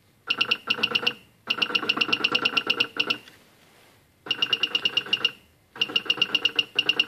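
Stepper motors of a Rostock delta 3D printer singing as the effector is driven fast back and forth along the X axis: four runs of a high electronic tone with a fast even pulsing, about ten pulses a second, broken by short pauses where the moves change direction.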